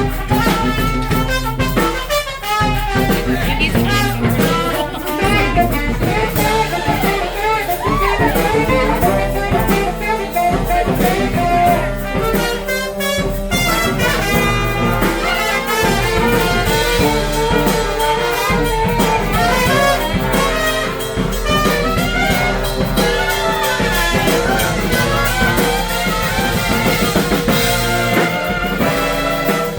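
Live street brass band playing a tune: trumpets and saxophones over a drum kit keeping a steady beat.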